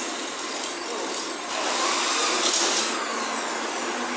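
Steady hissing background noise of a large industrial shop hall, swelling louder for about a second and a half in the middle.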